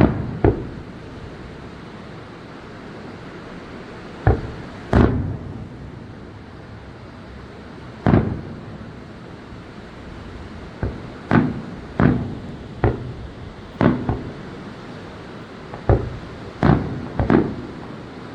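Aerial firework shells bursting: about a dozen booms at irregular intervals, each trailing off in a short echo, over a steady background hiss.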